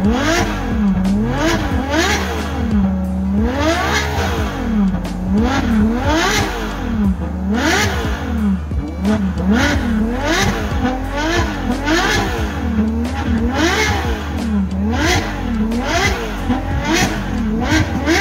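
Car engine being revved over and over, its pitch climbing and dropping about once a second, over a steady low rumble.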